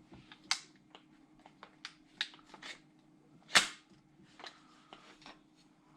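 Irregular clicks and knocks of airsoft rifle parts being handled and slid together during reassembly, with one sharper knock about three and a half seconds in, over a faint steady hum.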